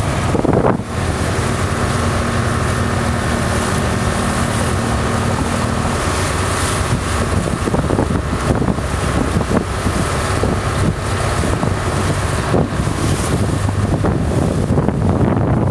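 Boat engine running steadily, a low hum under heavy wind noise buffeting the microphone.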